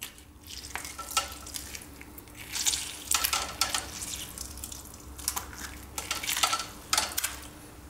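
Lemon halves squeezed with a fork, the juice squirting and dripping through a wire-mesh sieve into a saucepan in a series of short, irregular wet bursts.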